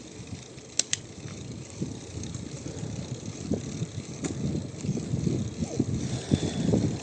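Bicycle rolling over a rough country road: an uneven tyre-and-frame rumble that grows louder, with a few sharp rattling clicks, two about a second in and one near the middle.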